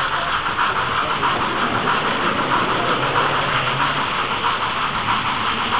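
OO gauge model train running along the track, heard from a camera riding on the train: a steady hissing rumble of wheels rolling on rail.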